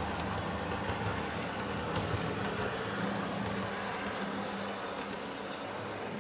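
Model train running round the layout's track: a steady motor hum with faint, irregular clicking of wheels on the rails.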